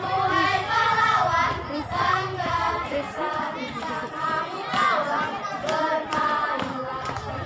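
A group of children singing together in chorus, punctuated by a few sharp hand claps.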